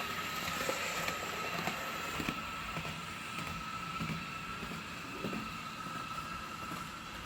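HO-scale Piko Class 442 electric multiple unit model running along the track: a steady high whine with faint scattered clicks, easing off slightly near the end.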